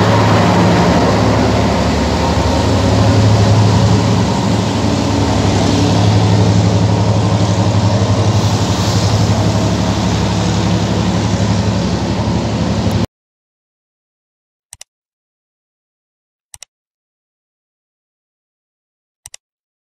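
Diesel-hauled passenger train passing close by and pulling away, its engine running steadily over the rolling noise of the wheels, until the sound cuts off suddenly about 13 seconds in. Three short clicks follow in silence.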